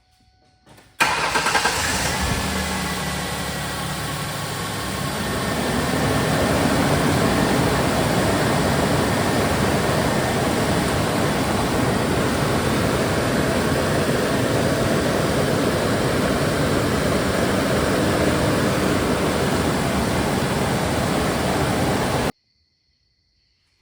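A 2008 Ford Ranger's 3.0 L V6 engine starts about a second in, then runs steadily at idle. This is the first start after the new alternator is fitted. The sound cuts off abruptly near the end.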